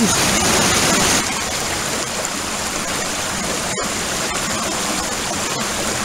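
Steady rush of creek water running over rocks, a little louder in the first second, with a very brief dropout a little under four seconds in.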